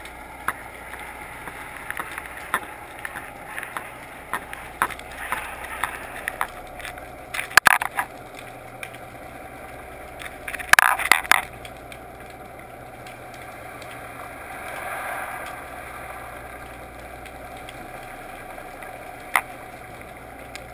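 Underwater sound picked up by a GoPro in its waterproof housing: a steady muffled rush of water with scattered sharp clicks and knocks, a quick cluster of them about eleven seconds in. A faint sound swells and fades in the middle.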